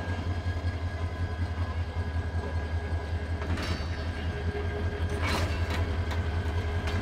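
Diesel locomotive engine idling with a steady low throb while the locomotive is turned on a rail turntable. Two brief rushes of noise rise over it, about three and a half and five seconds in.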